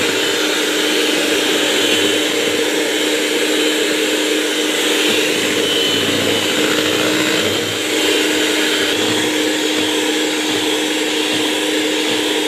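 Electric hand mixer running at a steady speed, its twin beaters whisking a thin batter in a bowl: a constant motor whir with a steady hum.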